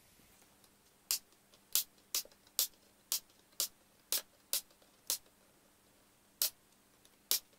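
A series of sharp clicks, about a dozen at irregular half-second spacing, with a faint steady hum underneath.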